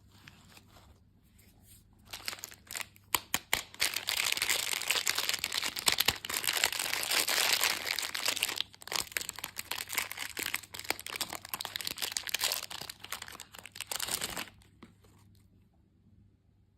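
Candy wrapper crinkling as it is handled and pulled open: dense crackling that starts about two seconds in, pauses briefly in the middle and stops near the end.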